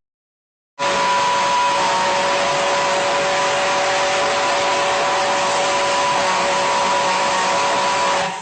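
Ship's steam whistle blowing one long, steady blast: a loud hiss with a few held tones. It starts about a second in and cuts off suddenly near the end.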